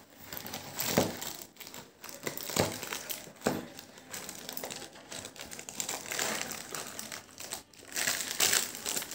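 Plastic Kurkure snack packet crinkling as it is opened and handled: irregular rustling crackles with a few sharper clicks.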